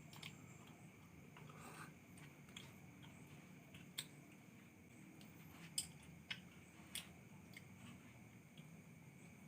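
Near silence with a faint steady background and a handful of sharp little clicks, the clearest about four, six and seven seconds in.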